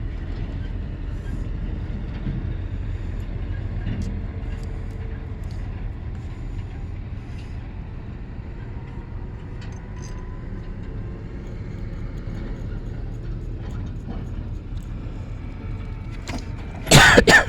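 A steady low engine-like rumble from a running motor or engine, with a short, loud clattering noise near the end.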